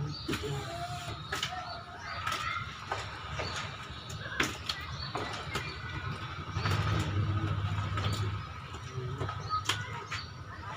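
Live snakehead fish thrashing in a tub of shallow water as a hand gropes among them: irregular sharp wet slaps and splashes. A low hum under them grows louder for a couple of seconds past the middle.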